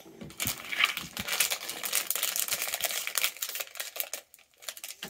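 Crinkling of a Lego minifigure blind bag's plastic foil as it is squeezed and handled by hand: a dense crackle for about three seconds, then a few lighter rustles and clicks.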